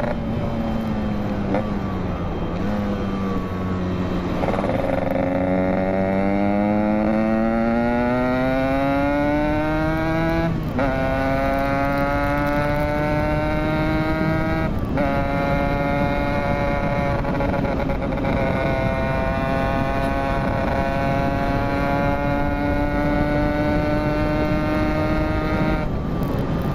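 Yamaha RX-King two-stroke motorcycle engine under way, its pitch dipping and then climbing steadily as the bike accelerates. It has two brief breaks, about ten and fifteen seconds in, where the revs drop at an upshift, then it holds fairly steady.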